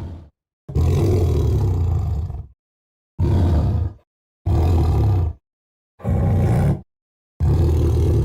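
Custom werewolf roar sound effects: a series of deep roars, one long one of nearly two seconds followed by four shorter ones, each cut off cleanly into silence.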